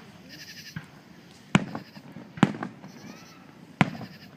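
Aerial fireworks exploding: three sharp bangs about a second apart, each trailing off in a short rumble.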